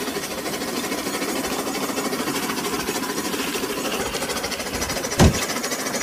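Railking battery-powered toy steam locomotive running along its track: a steady, rapid whirring rattle from its small electric motor and wheels, broken by a single sharp thump about five seconds in.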